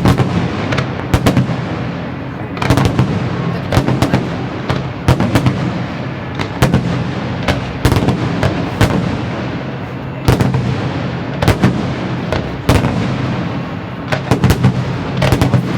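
Fireworks display: many aerial shells bursting, some in quick clusters of several bangs, over continuous crackling.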